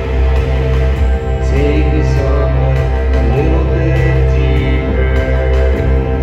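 Live electronic music played loud through a PA: heavy, steady synthesizer bass and sustained keyboard tones, with a man's singing voice coming in about a second and a half in.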